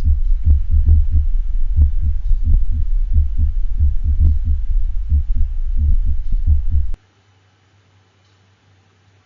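Heart sound simulator playing S1 and S2 heart sounds as repeated low thuds over a low hum. The rhythm is meant to show a ventricular premature contraction, a single premature ventricular beat interrupting sinus rhythm. The sound cuts off abruptly about seven seconds in.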